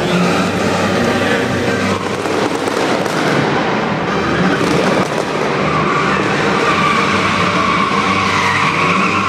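A stunt car's engine running hard with its tyres squealing as it slides across the arena floor; a high squeal grows stronger over the second half.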